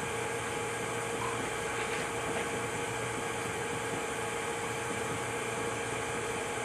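Steady room tone: an even hiss with a constant low hum, like a fan or ventilation running, unchanged throughout.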